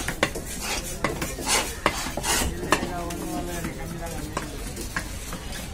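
Large fish-cutting knife slicing through fish flesh and striking a wooden log chopping block, giving a string of sharp knocks and scrapes that are most frequent in the first three seconds.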